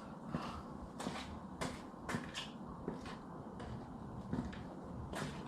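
A series of light clicks and knocks, about seven spread over a few seconds, from small parts being handled during a headlight bulb swap.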